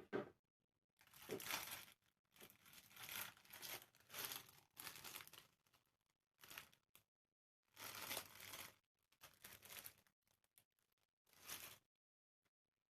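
Packaging being torn open and crinkled by hand, in a series of short rustling bursts with brief pauses between them.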